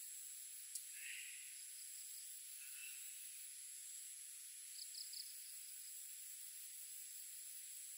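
Faint steady high-pitched chirring of insects over a hiss. There is a single click under a second in and a quick run of three short high chirps about five seconds in.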